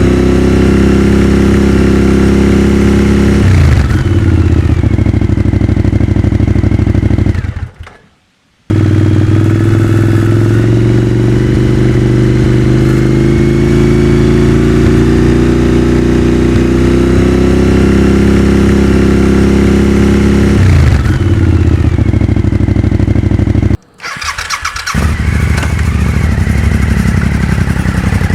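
Suzuki SV1000's 1,000 cc V-twin engine running loud and steady, its pitch slowly rising and then dropping sharply twice as the throttle is closed. The sound cuts out briefly twice.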